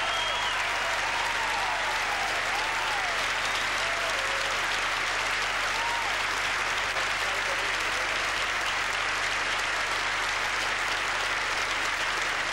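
Large audience applauding steadily, with a few cheering voices and a whistle in the first few seconds.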